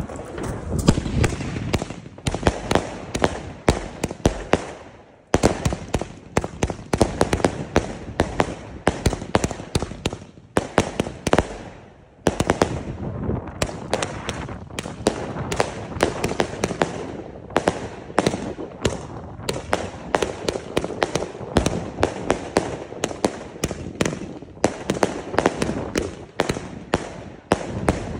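Funke Weissblinker-Rot firework firing: a rapid, dense string of shots and bursts, with short lulls about five and twelve seconds in.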